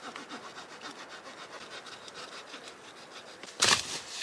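The small saw blade of a Swiss Army knife sawing through dry wood, with a steady run of quick short strokes. A louder rasping burst comes about three and a half seconds in.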